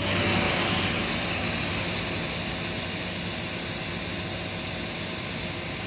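Prototype QUIVR electric pressure washer spraying through a test nozzle and inline pressure gauge: a loud, steady hiss of the high-pressure water jet over the hum of the electric motor and pump, running at about 1,000 psi.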